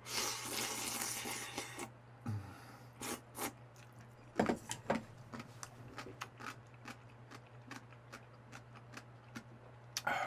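A person sipping from a bowl for about two seconds, then scattered small clicks and smacks of chewing and mouth sounds.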